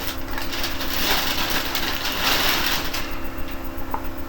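Rustling and crinkling as comic books are handled and shuffled through, loudest for a couple of seconds before dying away, over a steady low hum.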